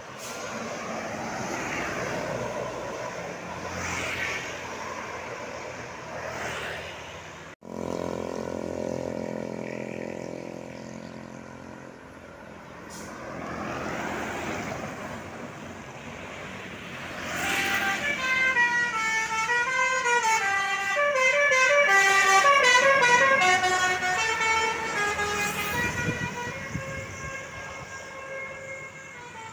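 Tour bus's Basuri 'telolet' musical horn playing a fast warbling tune of stepped tones. It starts a little past halfway and lasts about ten seconds. Before it, vehicle engine and road traffic noise, with a vehicle passing by.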